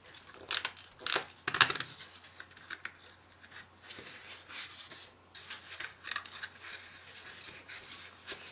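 Card stock being handled while a Snail tape-runner adhesive is run along it: sharp clicks and short rasps, with a longer rasp about four seconds in.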